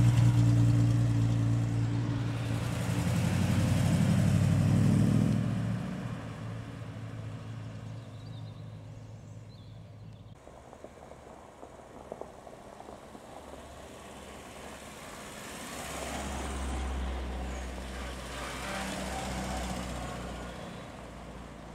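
Triumph TR6's straight-six engine running with a steady low note as it drives slowly past, loudest in the first five seconds and then fading away. About two-thirds of the way through, a lower engine rumble rises again as another small classic car pulls past.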